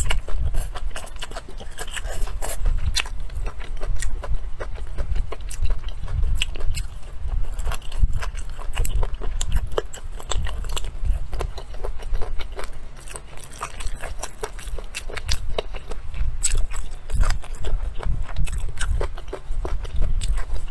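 A person chewing and biting food close to the microphone, with many short crackling clicks throughout over a low rumble.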